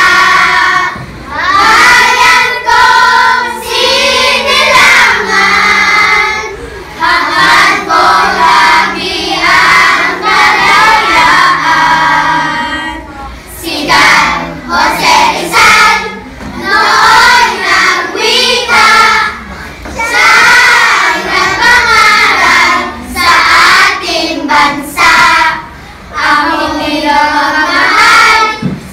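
A group of children singing together in unison, phrase after phrase with short breaks between.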